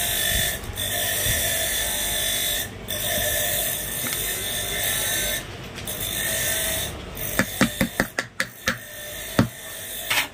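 About eight sharp metallic clicks and taps in the second half, each with a brief ring, as a ceiling fan's metal bearing end cover and its ball bearing are handled against the workbench. A steady hiss runs underneath.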